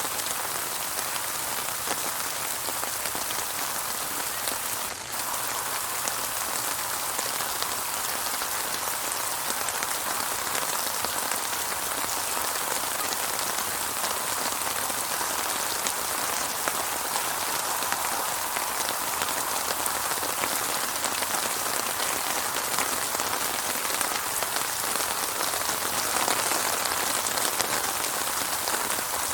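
Steady rain falling, a dense even patter of drops with no thunder, with a brief dip in level about five seconds in.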